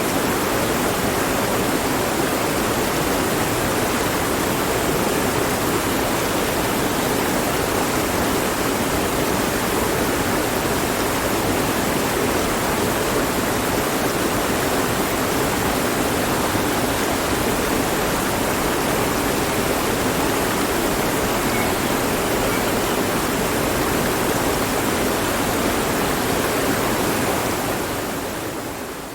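Mountain stream flowing steadily with an even rush of water, fading out over the last couple of seconds.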